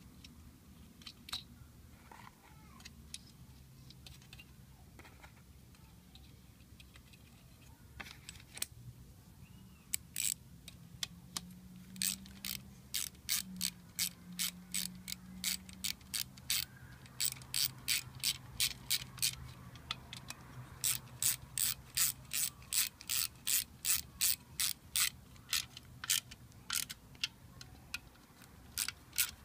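Ratchet wrench clicking in runs of about two to three clicks a second, starting about ten seconds in, as the nuts on a car alternator's rear cover are turned. Before that there are only a few scattered light clicks of handling.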